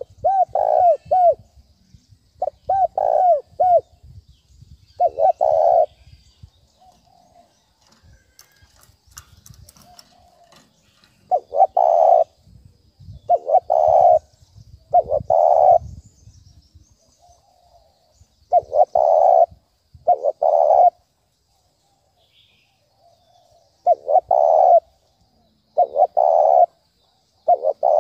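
Spotted dove cooing in the urgent, repeated 'thúc bổi' style used as a lure call, about a dozen short coo phrases with irregular gaps. The first two phrases are quick runs of arched notes, and there is a pause of a few seconds past the middle.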